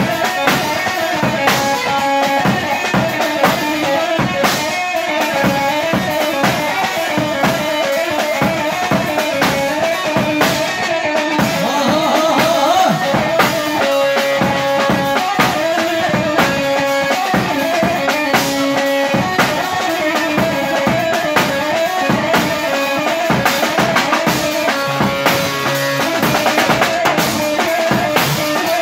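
Live Kurdish halay dance music: a drum kit played with steady, driving kick and snare hits under an amplified bağlama melody.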